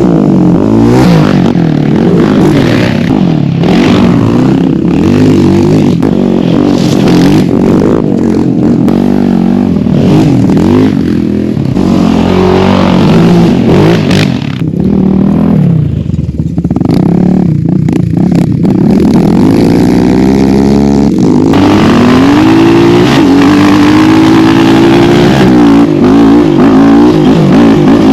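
Yamaha Raptor 700 ATV's single-cylinder four-stroke engine being ridden hard, its pitch rising and falling over and over as the throttle is worked, with some clatter. The engine eases briefly about halfway through, then pulls hard again.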